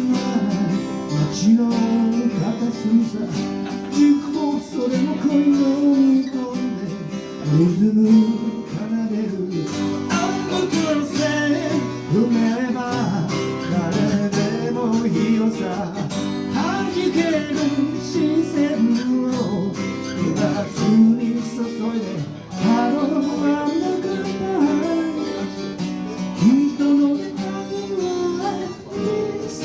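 Live guitar music in the middle of a song: strummed chords with a melody line that bends up and down over them.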